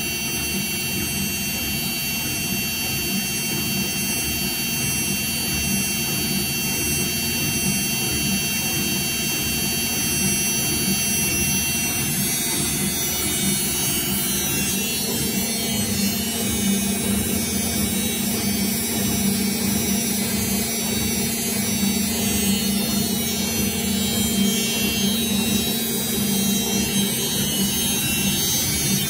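Whirlpool FL5090/A front-loading washing machine in its final spin, the drum turning at high speed. The motor gives a steady whine over the drum's hum.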